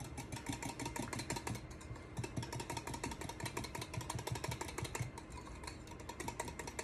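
Whisk beating chocolate pudding mix into almond milk in a bowl: a rapid, rhythmic clicking as the wires knock against the bowl, several strokes a second.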